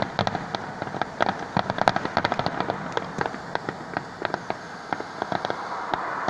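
Aerial fireworks bursting overhead, with many sharp crackling pops every second, irregular and densely packed.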